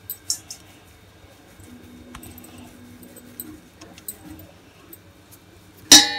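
Dough being handled in a metal mixing bowl, with small clinks of metal bangles. About six seconds in comes one loud metallic clink that rings on briefly, as the bangles strike the bowl.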